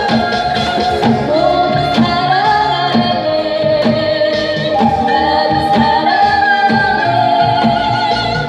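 Korean fusion gugak group performing through a PA: a woman sings a wavering melody over a steady beat, with haegeum and transverse flute lines.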